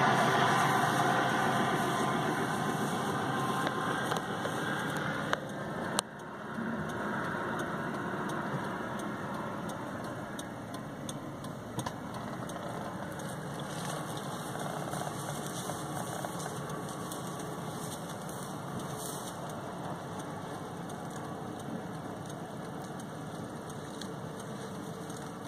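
Car engine running steadily, heard from inside the vehicle's cabin. There is a sharp click about six seconds in, after which the sound is quieter.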